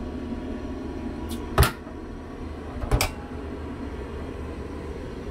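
Two sharp knocks about a second and a half apart, from closet doors being shut, over a steady low background hum.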